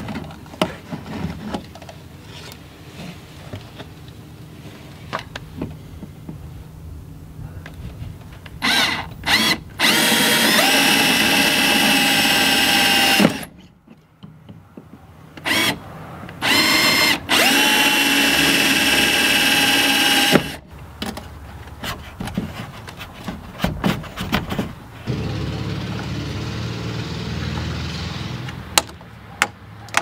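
Cordless power drill fastening a mirror bracket to a golf cart's roof frame. It gives a few short trigger blips, then runs twice for about three seconds each, the motor's whine climbing in pitch as it spins up and stopping abruptly.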